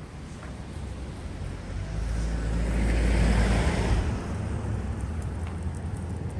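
A car passing close by on the road, its engine and tyre noise swelling to a peak about three seconds in and then fading away.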